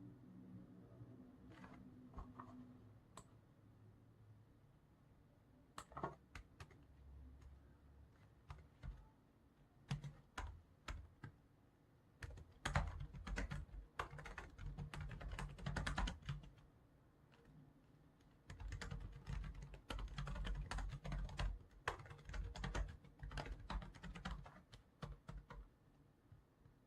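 Computer keyboard typing: a few separate keystrokes at first, then two long runs of quick typing with short pauses between them.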